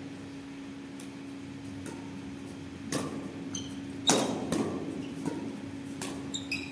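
A doubles badminton rally: rackets smack the shuttlecock in a run of sharp hits about once a second, the loudest about four seconds in, with short squeaks of court shoes on the floor. A steady low hum runs underneath.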